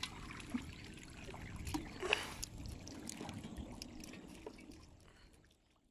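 Faint trickling and splashing of water with small scattered knocks, fading out near the end.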